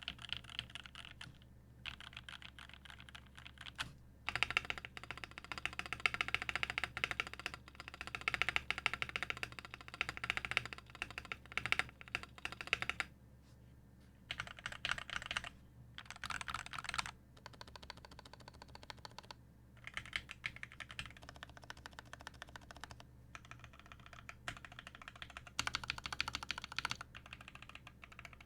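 Typing on a Duck Orion 2.5 custom mechanical keyboard with an aluminum plate, no case foam, lubed and filmed Original Aspirations switches and GMK keycaps. It runs as fast keystroke runs broken by short pauses.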